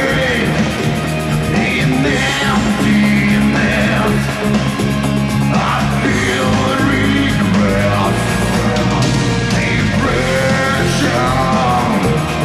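Live rock band playing loudly: electric guitars, bass and drums, with a voice singing over them.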